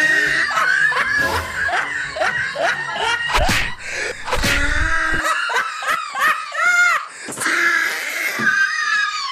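A woman screaming and laughing in a high pitch, with a few sharp knocks in the middle.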